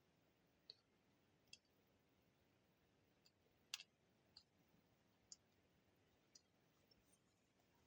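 Near silence broken by about eight faint, scattered small clicks as small parts are handled: potentiometers being pushed into the circuit board.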